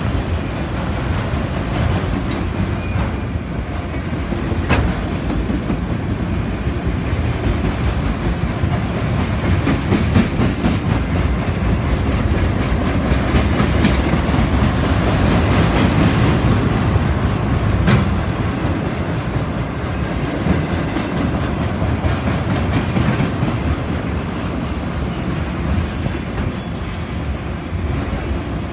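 Mixed freight train of autorack cars, boxcars and loaded flatcars rolling past at close range: a steady rumble of steel wheels on rail with occasional sharp clicks. Faint high-pitched wheel squealing comes and goes near the end.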